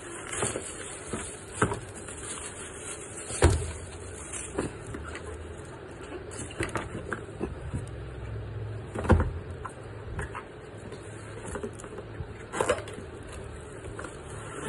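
Cardboard box and paper wrapping being handled and rustled while a pair of binoculars is unpacked, with several sharp knocks, the loudest about three and a half and nine seconds in.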